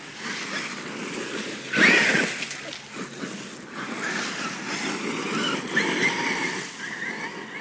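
Brushless Traxxas E-Revo RC monster truck running on a gravel driveway, its electric motor whining up and down as it accelerates and turns, tires churning and spraying gravel. The loudest rush comes about two seconds in.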